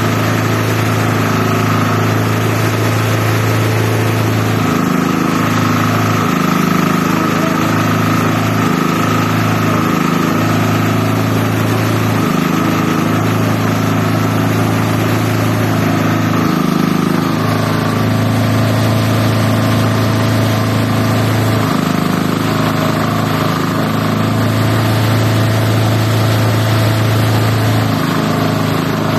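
Multi-purpose chopper-shredder machine running steadily, a constant engine hum with a higher whine above it, dipping briefly every few seconds.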